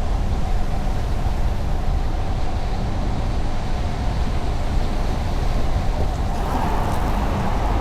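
A car driving at road speed: steady road and tyre noise with a low rumble. It swells briefly for about a second near the end.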